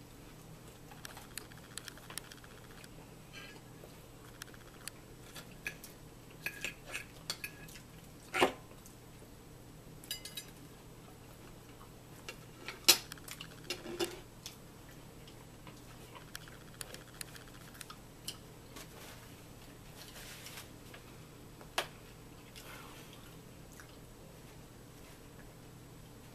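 Metal fork clinking and scraping on a dinner plate during a meal, in scattered short clicks, the loudest about eight and thirteen seconds in.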